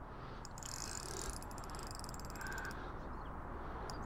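Fishing reel clicking rapidly in two runs, one from about half a second in to nearly three seconds and another starting near the end, as a hooked fish is being played on the rod.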